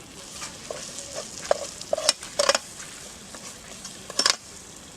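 A spoon stirring and scraping a thick onion-tomato-cashew paste frying in a pan, over a low sizzle. The scrapes and knocks come irregularly, loudest about two seconds in and again just after four seconds.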